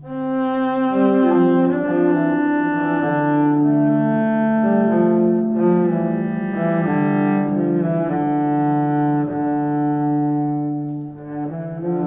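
Background music of bowed strings: slow, sustained notes in several overlapping parts, the pitches shifting about every second, with a brief dip in loudness near the end.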